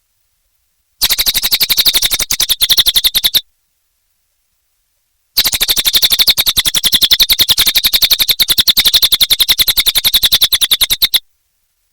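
Cililin songbird singing a very rapid, evenly pulsed rattling trill, high-pitched, in two bouts: a short one about a second in and a longer one of about six seconds past the middle.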